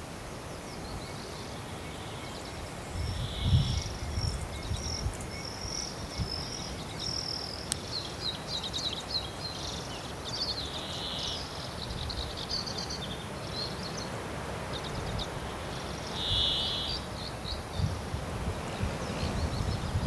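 Several small songbirds singing, with overlapping twittering trills and short high chirps, busiest in the middle. Wind buffets the microphone with a low rumble a few seconds in.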